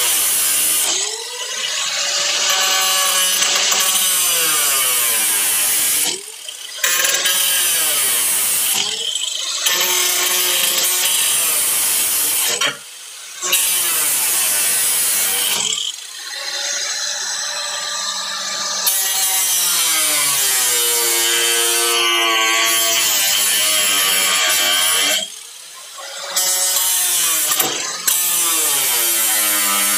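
A grinder's cutoff wheel cutting through a car's steel quarter panel. Its whine sags in pitch as the wheel bites and climbs again. The cut stops briefly about five times as the wheel is lifted off.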